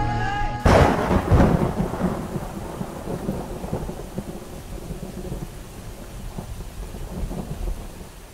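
Thunderclap with rain: a sudden loud crack just under a second in, then a rolling rumble that fades away over several seconds under a steady rain hiss.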